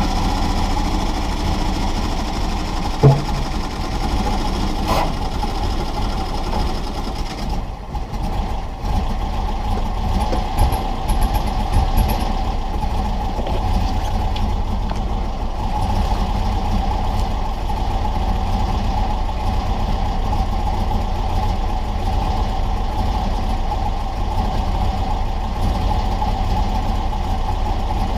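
A 1970 VW bus's air-cooled flat-four engine running steadily with a low hum, with a couple of short knocks a few seconds in.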